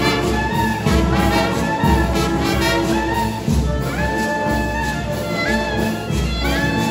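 Municipal wind band playing live: trumpets, trombones, tuba and clarinets together, over a steady low beat about twice a second, with held high brass notes about four seconds in and again near the end.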